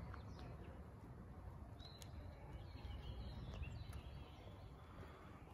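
Quiet outdoor park ambience: a steady low rumble with a few faint bird chirps in the middle.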